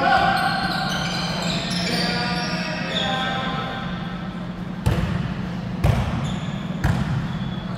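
A basketball dribbled on an interlocking plastic tile gym floor, three bounces about a second apart in the second half, over a steady low hum in a large hall.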